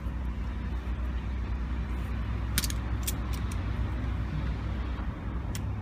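A few light, sharp metal clicks and clinks as locking pliers (Vise-Grips) are worked onto a van's track rod end ball joint, over a steady low rumble.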